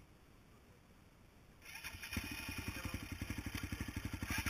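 Dirt bike engine starting about two seconds in, then running at a quick, even, pulsing idle.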